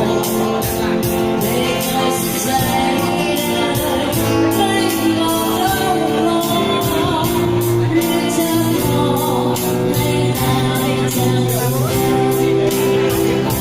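Live band music with a singer and a steady drum beat, amplified in a large room.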